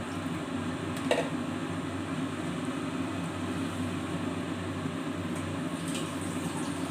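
Steady electric motor hum, with one sharp clink of a metal spatula against the kadai about a second in and a few faint light taps later on.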